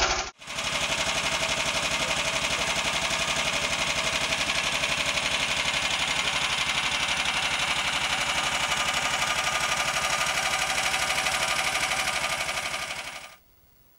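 Sharmax 18 hp four-stroke walk-behind-tractor engine on a homemade snowmobile, running parked at a steady, even speed with a fast, regular beat, evenly and quietly on its retuned variable-advance CDI ignition and PZ30 carburettor. It cuts off sharply near the end.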